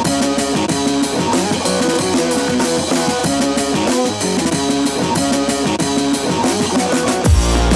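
Rock music with guitar and drums and a steady beat; a heavy bass comes in near the end.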